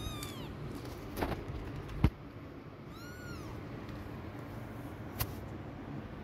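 A young kitten meowing: a short high falling meow at the very start and a rising-then-falling meow about three seconds in. A few sharp knocks sound between them, the loudest about two seconds in.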